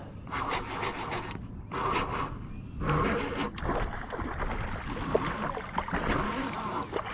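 Baitcasting reel being cranked as a hooked bass is reeled in, with irregular rustling and scraping from the hands and reel close to the microphone.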